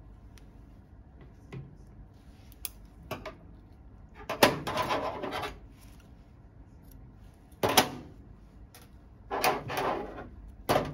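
Hands-on suturing sounds on a silicone training model: scattered sharp metal-instrument clicks, and several bursts of gloved hands and suture thread rubbing and scraping against the model. The loudest bursts come about four and a half seconds in, near eight seconds, and about nine and a half seconds in, with a sharp knock near the end.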